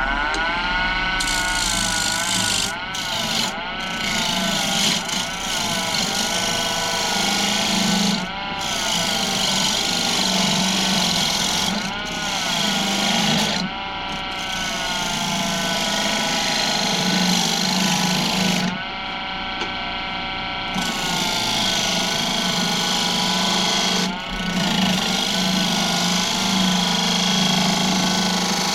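Turning tool cutting a spinning wooden bowl blank on a Laguna wood lathe, rounding the rough blank, with a steady low hum from the lathe under the cut. The cutting noise drops out briefly several times as the tool comes off the wood.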